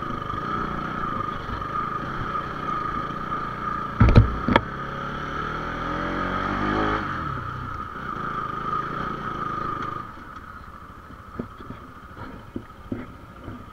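Bajaj Pulsar 220 motorcycle engine running up a rough, stony dirt track, with two loud knocks about four seconds in and the engine revving up and down just after. About ten seconds in it drops much quieter, leaving scattered small clicks and rattles.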